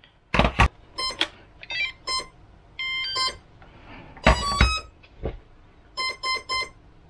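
Two brushless EDF motors sounding their ESCs' start-up and arming beeps as the 3S lipo is plugged in: several groups of short electronic beeps, with a couple of sharp clicks, one near the start and one about halfway. The beeps signal that both ESCs are powered and recognised by the receiver.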